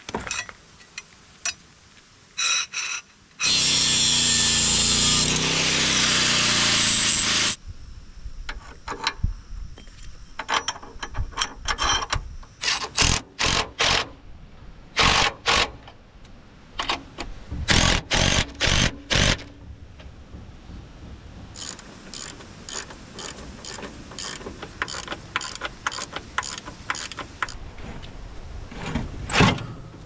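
Bolts being tightened on steel strut-channel brackets on a bulldozer. A power tool runs steadily for about four seconds a few seconds in, then come short bursts and a run of sharp ratchet-like clicks and small metal knocks.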